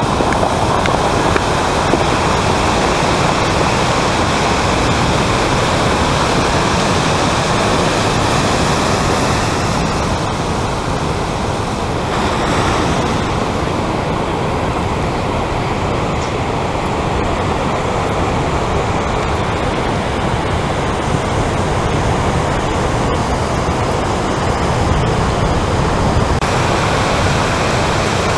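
Steady roar of big breaking ocean surf and whitewater, a dense, even rushing noise.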